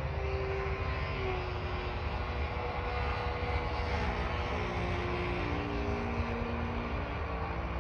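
Radio-controlled Yak 54 aerobatic plane in flight, its OS GT33 single-cylinder two-stroke gas engine and 16x10 propeller droning, the pitch shifting up and down as it manoeuvres.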